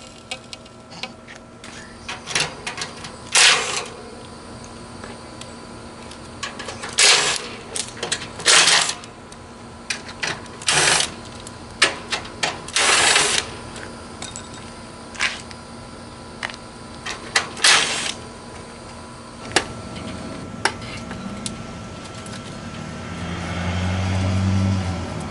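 Metal parts being worked on an old central air conditioner condenser: a string of short, sharp clanks, rattles and scraping bursts from the sheet-metal cabinet, over a steady faint hum. Near the end a lower, humming sound swells for a couple of seconds.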